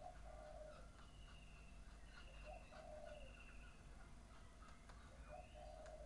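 Faint wild bird calls: three low calls about a second each, near the start, the middle and the end, with thin high whistles between them.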